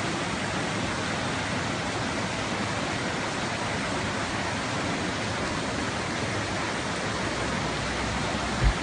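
Steady rushing noise of fast-flowing floodwater pouring over a road. A brief low thump near the end.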